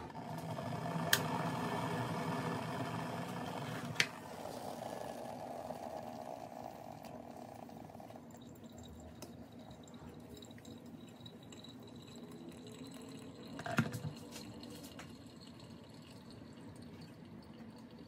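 Hot water poured from an electric kettle onto ground coffee in a paper filter in a plastic pour-over dripper, a quiet steady trickle that fades away over the first half. Two sharp clicks come in the first four seconds and a knock about fourteen seconds in.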